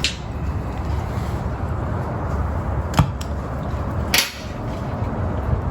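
Three short, sharp metallic clicks, one at the start, one about three seconds in and one a second later, over a steady low rumble. They come as the tip of an oxy-fuel cutting torch is cleaned after the torch popped out, which the blacksmith puts down to rust or carbon soot in the centre orifice.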